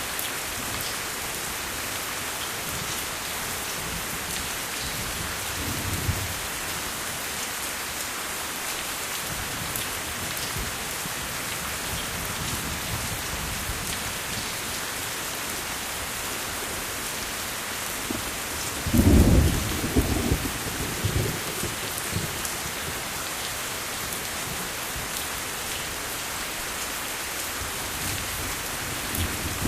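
Steady rain with rumbles of thunder: a faint low roll early on and a loud rumble about two-thirds of the way through, with another beginning at the very end.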